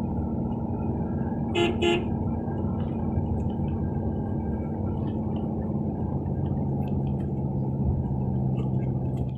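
Car driving on a wet highway, heard from inside the cabin: a steady engine and tyre drone whose pitch drops about six seconds in. About one and a half seconds in, a vehicle horn gives two short beeps.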